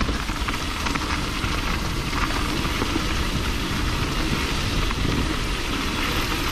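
YT Tues downhill mountain bike riding down a dirt trail: a steady rushing, crackling noise of tyres rolling over the ground and air rushing past.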